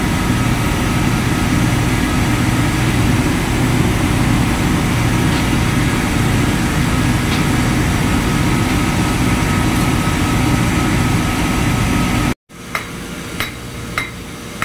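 Steady drone of ship engine-room machinery with a low hum. It cuts off abruptly near the end. A quieter stretch follows with a few sharp metallic taps, roughly every half second, as a steel drift is knocked against a new bearing to seat it in the purifier's belt-drive coupling.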